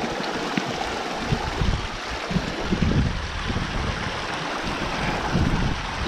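Shallow mountain stream rushing and splashing over rocks, a steady full-range wash of water, with uneven low rumbles underneath.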